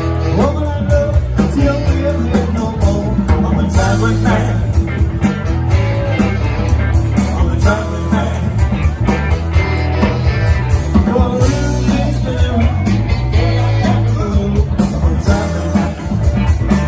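Live rock band playing, with electric guitar, bass guitar and drums, and a lead vocal sung over them.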